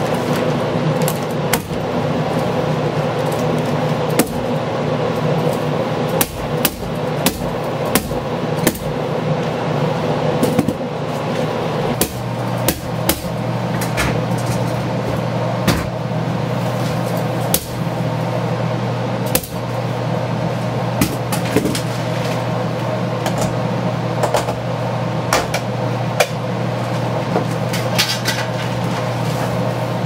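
Staple gun snapping staples through plastic vapour-barrier sheeting at irregular intervals, a shot every second or two, over a steady mechanical hum.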